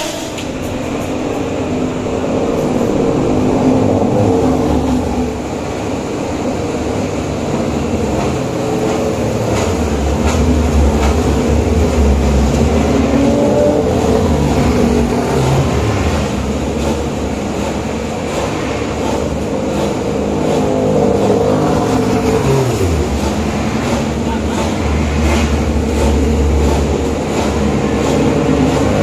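Racing motorcycle engines running hard as bikes ride along a circuit's main straight, the engine note rising and falling, with a sharp drop in pitch about three quarters of the way through.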